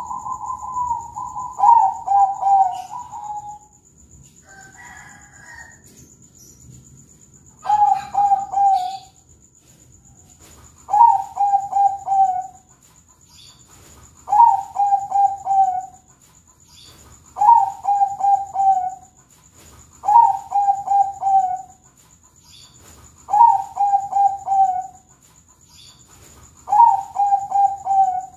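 Zebra dove of the Thai 'perkutut bangkok' song breed singing its cooing song: a quick run of slightly falling notes about a second and a half long, repeated roughly every three seconds, eight phrases in all. A softer, higher call sounds once about five seconds in.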